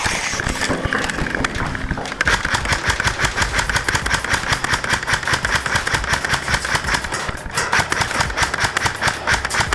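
Airsoft electric guns (AEGs) firing full-auto: a rapid, even rattle of shots that starts about two seconds in, breaks off briefly near 7.5 seconds, then picks up again.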